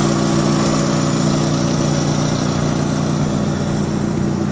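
Honda D16 single-overhead-cam four-cylinder engine in a classic Mini idling steadily at an even pitch.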